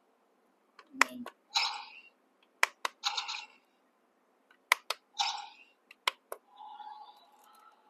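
Plastic clicks of the Micro Galaxy Squadron Ghost toy's buttons being pressed, each pair followed by a short electronic sound effect from the toy's small built-in speaker, four times over, the last one longer and fainter.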